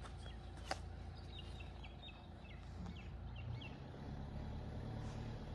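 Outdoor ambience: a steady low rumble with a bird chirping a quick run of short high notes about a second in, after a single sharp click. The rumble grows a little louder in the second half.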